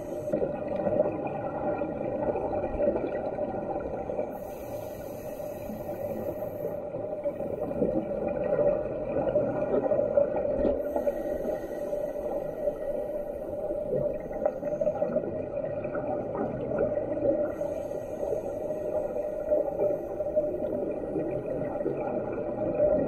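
Underwater sound of scuba diving recorded from inside a camera housing: a steady low rumble of water and bubbles, with a hiss every six or seven seconds from a diver's regulator breathing.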